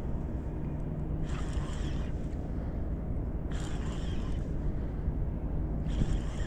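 Steady low rumble of wind and moving water around a small drifting boat, with a short hissing burst about every two seconds.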